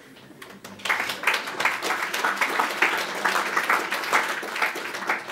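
Audience applauding: a few scattered claps, then full, dense applause from about a second in, thinning out near the end.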